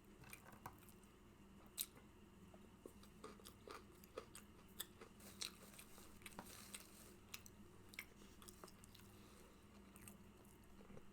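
Faint close-up chewing: a scatter of small, irregular mouth clicks and smacks as food is eaten.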